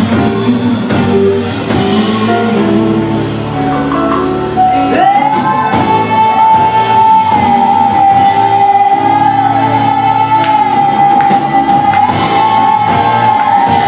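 Live band music with singing; from about five seconds in, one high note is held steadily over the band.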